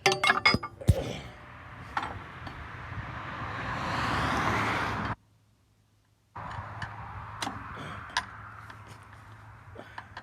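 Steel wire rope being worked by hand into the crawler's blade frame: sharp metallic clinks and knocks in the first second, then scattered clicks over a rushing noise that grows louder for a few seconds and cuts off abruptly.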